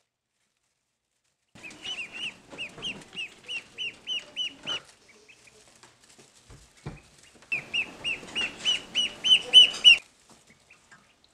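Duckling peeping: rapid runs of short, high, downward-sliding peeps at about four a second, in two bouts, the second one louder.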